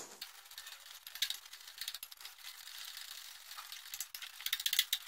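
Gram-flour batter being beaten by hand in a glass bowl: rapid, close-packed ticking and scraping of the utensil against the glass through the wet batter, a little louder near the end.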